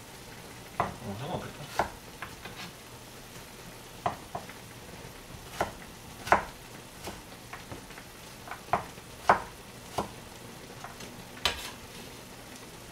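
Kitchen knife slicing radish pieces on a plastic cutting board: irregular, sharp knocks, about fifteen in all, over a faint steady hiss.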